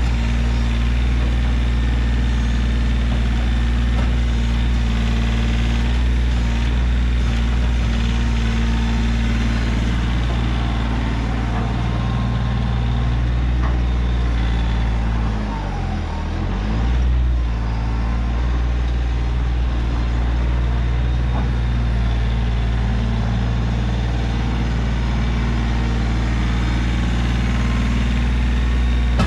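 Kioti CK3510 compact tractor's three-cylinder diesel engine running steadily while its front loader works. About halfway through, the engine note dips and wavers briefly, then steadies again.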